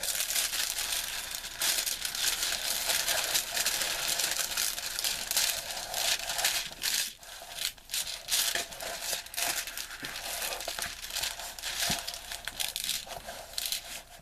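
Crinkling and rustling of the packaging being handled and pulled off a rolled diamond painting canvas, a steady crackle broken by many sharp crackles.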